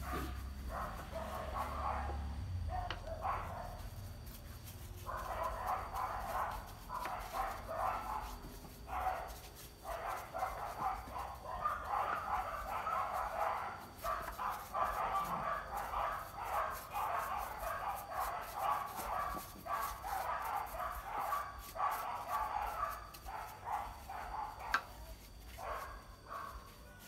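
A brush scrubbing over the polished surface of a carved wooden sculpture in quick, irregular back-and-forth strokes, pausing briefly a few seconds in.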